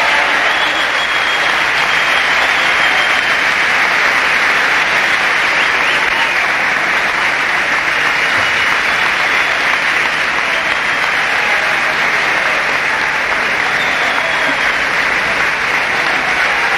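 Large crowd applauding and cheering in a dense, steady wall of clapping and shouting that holds at the same level throughout.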